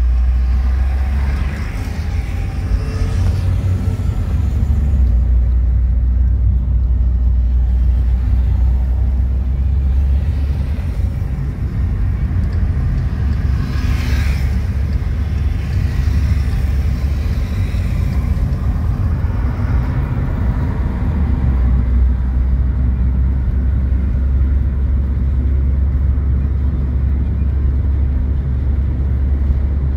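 Steady low rumble of a car's engine and tyres on the road, heard from inside the cabin while driving on a highway. About halfway through there is a brief louder swish, like another vehicle going by.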